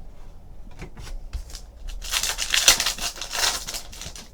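Trading cards and their packaging being handled: a few light clicks, then a stretch of crinkly rustling from about two seconds in that stops shortly before the end.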